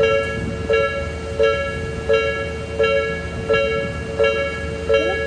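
Japanese railway level crossing's electronic warning bell ringing, a two-tone clang repeating about every 0.7 seconds while the crossing is closed for an approaching train, over a low steady rumble.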